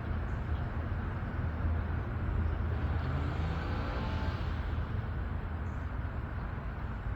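Road vehicle noise: a steady low engine rumble, with a vehicle's engine note rising as it passes about three to four seconds in.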